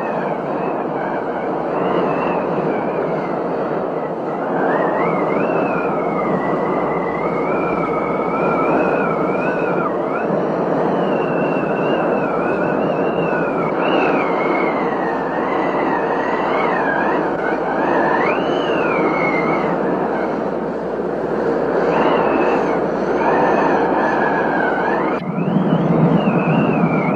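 Storm noise: a steady roar of heavy rain and wind, with the wind whistling in a high tone that wavers irregularly up and down.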